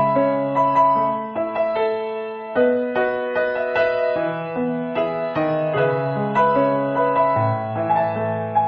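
Background piano music: a melody of changing notes over held low notes.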